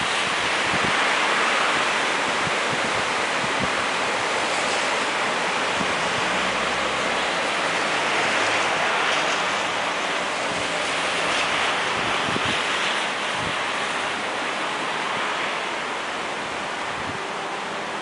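Storm-force wind rushing through the foliage of a large macrocarpa tree, a loud steady rush that swells and eases with the gusts and drops off a little near the end. A few low thumps of wind buffet the microphone.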